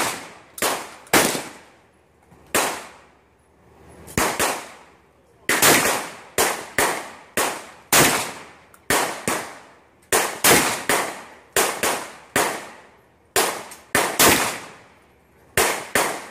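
Rapid semi-automatic gunfire from a shoulder-fired long gun: roughly two dozen single shots, mostly about half a second apart, broken by a few pauses of one to two seconds. Each shot is followed by a short echo.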